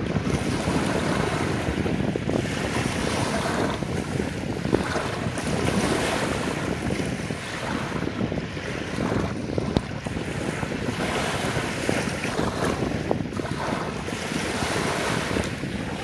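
Gentle sea waves lapping and washing up over a sandy shore in a continuous wash that swells and eases every few seconds, with wind noise on the microphone.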